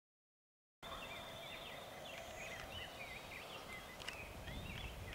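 Silence, then outdoor ambience starting about a second in: many small birds chirping over a low rumble, with one sharp click about four seconds in.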